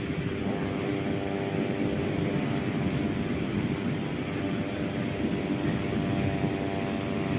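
Steady humming drone of a propeller aircraft overhead, a chord of even tones held level over a low rumble.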